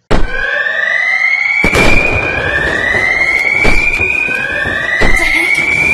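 Electronic alarm sounding: a whooping tone rising in pitch over about a second and a half, then starting again from low, repeated over and over. Several sharp thumps sound among it.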